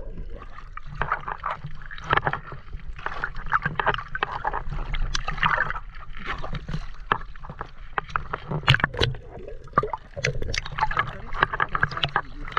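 Seawater sloshing and splashing around a camera at the surface as it dips in and out of the water, with irregular bubbling and sharp crackling clicks.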